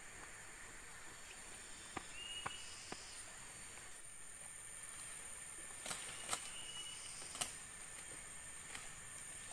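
Night forest ambience: insects keep up a steady high-pitched drone, broken by a few sharp clicks or cracks and one short high chirp a couple of seconds in.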